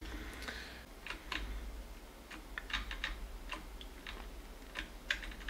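Computer keyboard keys pressed one at a time in an irregular series of light clicks, moving down through a text file in the vi editor.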